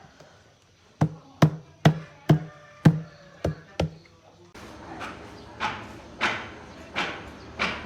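A run of sharp knocks, about two a second, each with a dull low thud. About four and a half seconds in, the background changes and a second run of brighter, more ringing knocks follows at a slightly slower pace.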